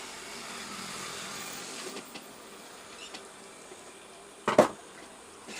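A faint steady hiss fades out after about two seconds, then a single sharp click about four and a half seconds in, made by work on the inverter circuit board.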